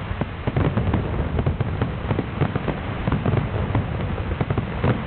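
Fireworks display: many aerial shells bursting at once, a dense, continuous barrage of rapid crackling pops over a steady low rumble.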